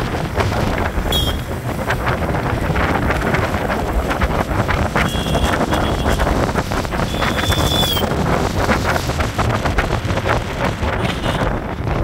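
Wind buffeting the microphone on a moving motorcycle, over steady engine and road noise, with a few short high-pitched beeps.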